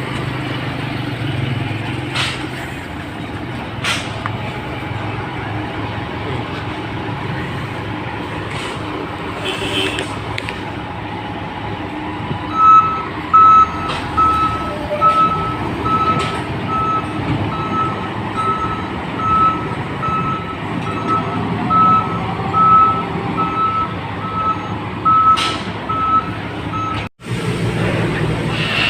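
Heavy container-handling vehicles running with a steady diesel engine rumble. From about halfway through, a reversing alarm beeps steadily at one pitch, about one and a half beeps a second, and stops shortly before the end. A few sharp knocks of metal handling are scattered through.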